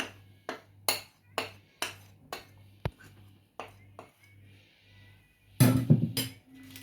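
A kitchen utensil knocking against a mixing bowl as flour is added to cake batter, about two sharp taps a second, then a louder clatter of utensil on bowl near the end.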